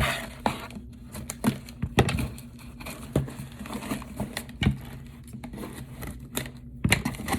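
A mailed package being torn open and unwrapped by hand: crinkling packaging and tearing, with scattered handling clicks and rustles.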